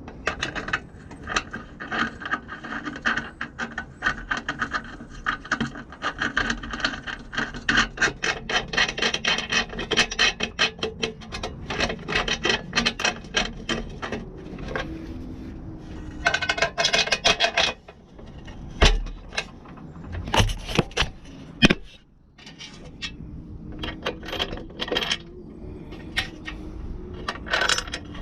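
Quick repeated scrubbing strokes with a hand tool, several a second. They stop for a few seconds past the middle, where a few sharp knocks are heard, then start again near the end.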